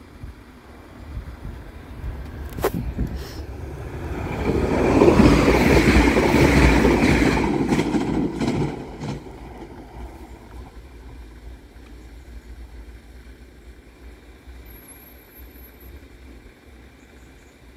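Passenger train running through a level crossing: a rumble that builds, is loudest for a few seconds as the train passes close, then fades as it draws away. One sharp click comes about two and a half seconds in.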